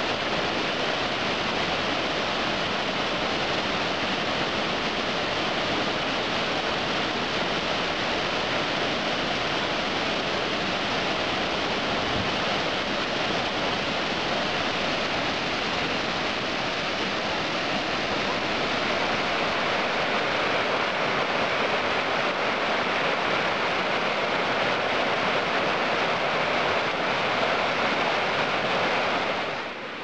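Su-Uchkhan waterfall pouring into its rock pool: a constant, even rush of falling water.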